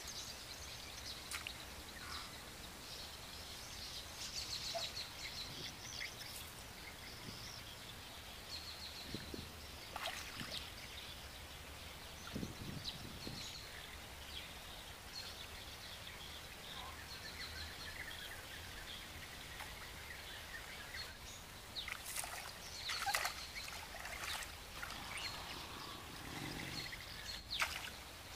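Small birds chirping repeatedly over a steady outdoor hiss, with water and mud sloshing and splashing as a person wades through a shallow muddy ditch and prods the water with a stick. The splashing is busiest near the end.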